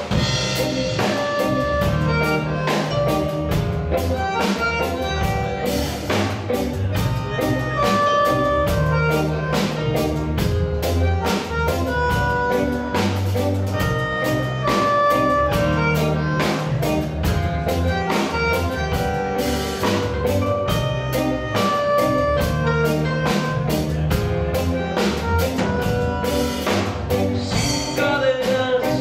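Live tango-dub band playing an instrumental passage: a drum-kit groove with a steady beat, a repeating electric bass line, and held melody notes over the top.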